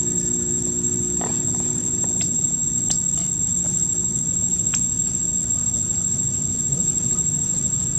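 Steady high-pitched insect drone over a low rumble, with a few brief sharp chirps or clicks about one, three and five seconds in.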